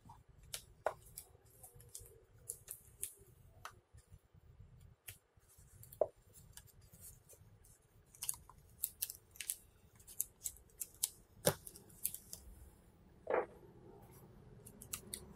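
Gloved fingers working the LCD ribbon-cable connector and its tape on a laptop LED panel: faint, scattered small clicks and crinkles, busier in the second half, with a few sharper clicks.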